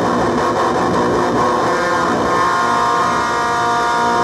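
Electric guitar played through an engaged JHS Bonsai overdrive pedal into an amp: distorted, sustained chords, with a new chord struck about two seconds in.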